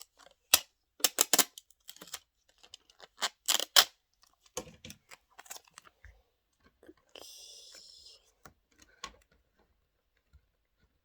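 Sticky tape handled and pulled from the roll: a run of sharp crackles and rips, then about a second of the tape screeching as it unrolls, about seven seconds in.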